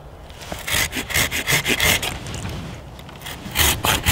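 Hand pruning saw cutting through a small apple-tree branch, the teeth rasping through the wood in back-and-forth strokes. A first run of strokes, a pause about two seconds in, then a faster, louder run of strokes near the end.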